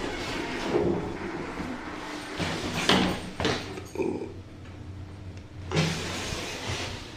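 Lift doors sliding, with several short knocks over a low steady hum.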